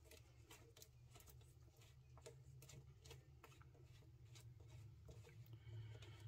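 Near silence with a string of faint, irregular clicks and taps as a hand works the controls of a small Honda gasoline water pump, over a low steady hum.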